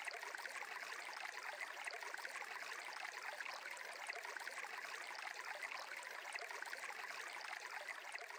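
Faint, steady sound of a flowing stream, an even wash of running water.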